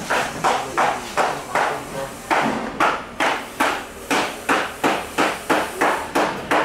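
Rapid, regular knocking, about three sharp strikes a second, each dying away quickly.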